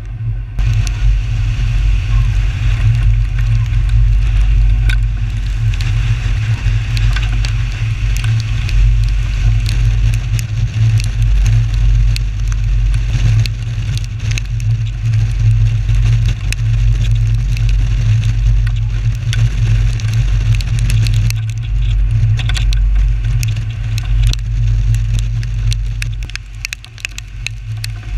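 Strong wind buffeting the microphone of a camera mounted outside a storm-chase vehicle, heard as a steady deep rumble. Rain drops tick and crackle against the housing throughout.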